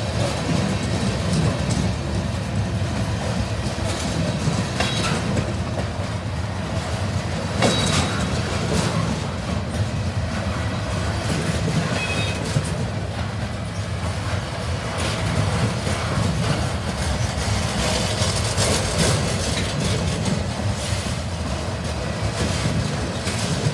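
Trash train of flatcars loaded with waste containers rolling past: a steady rumble of steel wheels on rail with irregular clicks and knocks as the wheels cross rail joints. A couple of brief faint wheel squeals come partway through.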